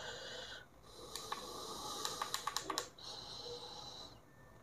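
Soft clicks and handling noise from a small LED video light: its buttons pressed and its body moved about in the hand, with a cluster of quick clicks between about one and three seconds in, over a faint hiss.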